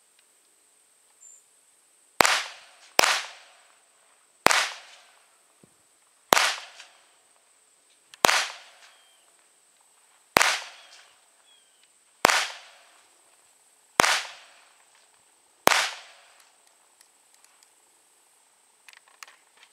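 Semi-automatic pistol fired nine times in slow aimed shots, the first two close together and the rest about two seconds apart, each report trailing off in an echo. A few faint clicks near the end.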